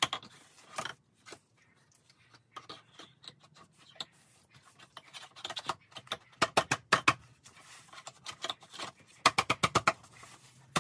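Hard plastic toy kitchen parts clicking and knocking together as pink shelves are pressed onto white plastic tube legs. There are scattered knocks and two quick runs of rapid clicks, one about six and a half seconds in and one about nine seconds in.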